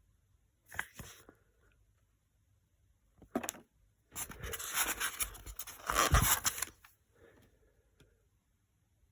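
Scraping and rubbing handling noise in short bursts, with a longer, louder stretch of about two and a half seconds in the middle.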